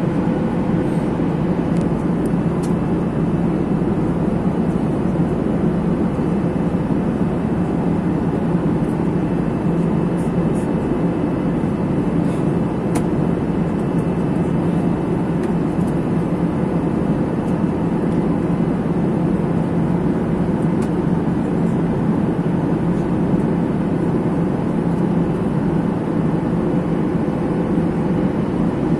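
Cabin noise of a Boeing 737 airliner in cruise flight, heard from inside the cabin: a steady rush of air and engine noise with a constant low hum underneath.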